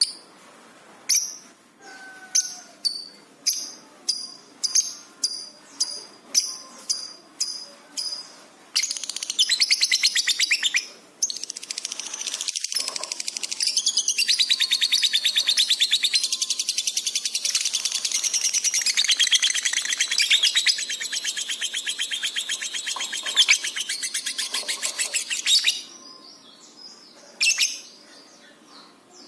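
Lovebird singing: a string of separate sharp chirps, then a long, very fast chattering trill lasting about fifteen seconds with one short break early in it, then a few more chirps.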